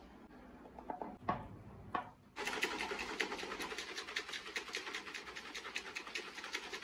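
Protein shake being shaken in a plastic shaker bottle with its spring whisk ball taken out: the powder and water slosh and knock against the bottle in a fast, even rhythm that starts about two and a half seconds in, after a few short knocks.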